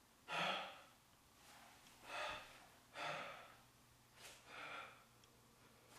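A man breathing hard under strain while holding a leg-raise ab exercise: about four heavy, audible breaths, roughly a second apart, with quiet between them.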